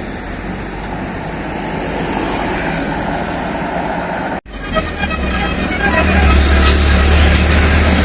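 Steady traffic noise from buses. After an abrupt cut about four and a half seconds in, a bus engine runs loudly close by while short, quick pitched notes of a basuri musical air horn sound over it.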